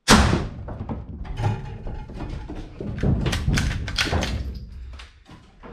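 A string of knocks, clunks and clatter from hard objects being handled. A loud thump opens it, and the knocks cluster most thickly from about three to four seconds in.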